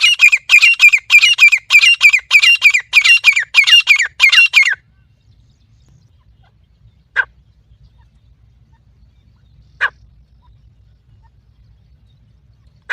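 Francolin (teetar) calling: a fast run of loud, repeated calls at about two a second that stops near five seconds in, then three single short notes a few seconds apart.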